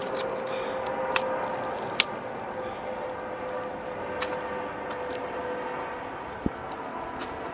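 Steady hum of distant highway traffic with a faint held drone, broken by about five sharp ticks and knocks, roughly one every second or two, from ice tools and crampons striking ice as a climber tops out.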